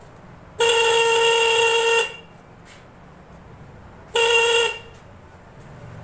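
An electric bike horn wired as an LDR light-sensor security alarm sounds twice: a long blast of about a second and a half near the start, then a short blast about four seconds in.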